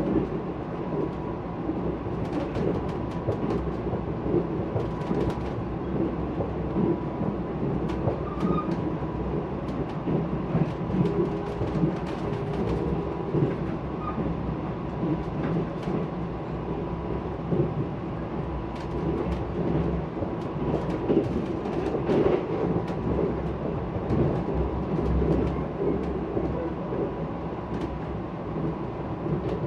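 Steady running noise of a Mugunghwa passenger train heard inside the carriage: a continuous rumble with scattered irregular clicks and knocks from the wheels and rails.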